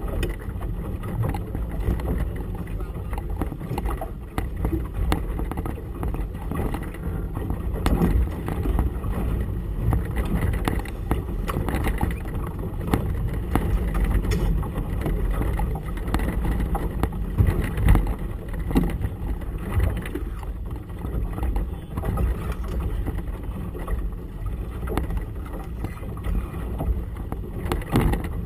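Gusty wind buffeting the camera's microphone in an uneven low rumble, with choppy water splashing against the boat's hull.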